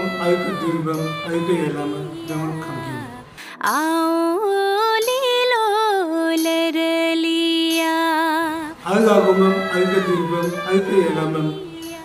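A woman singing solo and unaccompanied into a microphone: a short melodic phrase of long held notes with vibrato in the middle. A man speaks before and after the singing.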